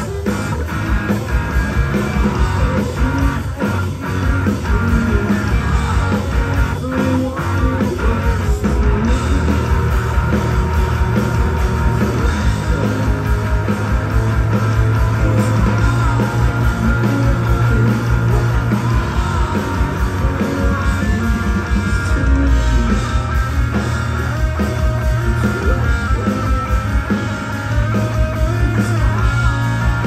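A rock band playing live: electric guitars, bass and drums with a sung lead vocal, heard from within the crowd.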